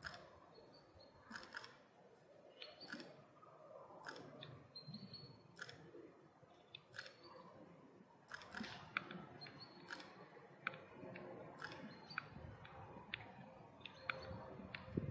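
Camera shutter clicking again and again at irregular intervals, the clicks often coming in quick pairs, as stills are taken. Faint.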